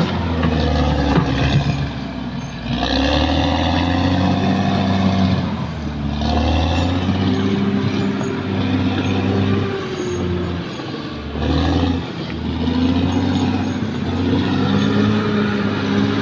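Caterpillar D6R XL bulldozer's diesel engine working under changing load, its note and level rising and falling every few seconds, with a short drop a little past the middle.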